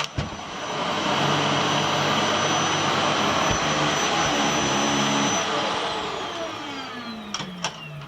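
Vax Air Lift Pet upright vacuum cleaner's 850 W motor running with a steady high whine, then switched off about five and a half seconds in, its pitch falling as it spins down. A few sharp plastic clicks near the end.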